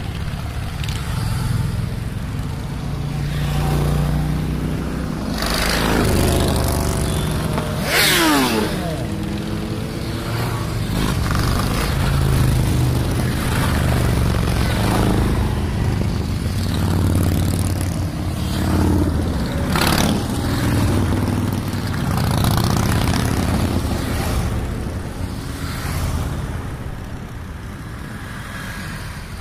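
A procession of large touring motorcycles riding past one after another, their engines keeping up a steady low rumble. One bike about eight seconds in goes by close and loud, its pitch falling as it passes. The rumble thins out near the end.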